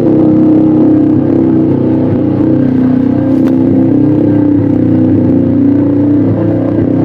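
Motorcycle engine idling steadily through an aftermarket canister exhaust, with one short click about halfway through.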